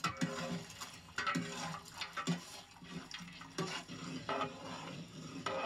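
Wet, sloshing liquid sounds from a curd-and-spice mutton mixture in a cooking pot, with irregular short clicks and splashes.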